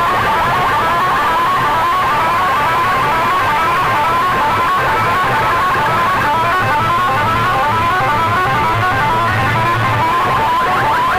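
Loud music played over a DJ sound system, a fast repeating figure of short rising notes over a steady low tone.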